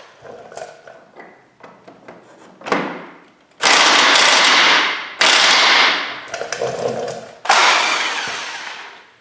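Impact wrench hammering in bursts: one short blip a little under three seconds in, then three longer runs of about a second to a second and a half each, with small clicks of tool handling between them.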